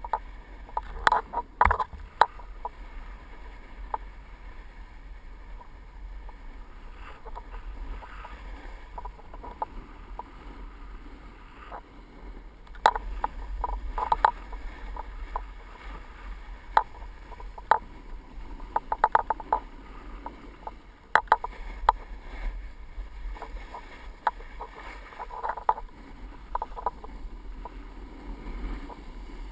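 A rider sliding down a groomed ski slope: a steady hiss and scrape of snow underfoot, with wind rumbling on the camera microphone. Clusters of sharp rattling clicks come and go throughout.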